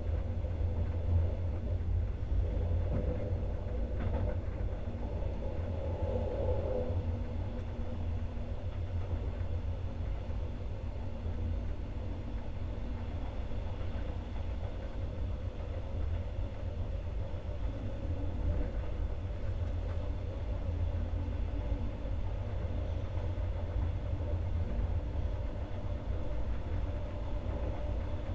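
Steady low rumble of an Alex regional passenger train running along the line, heard from on board.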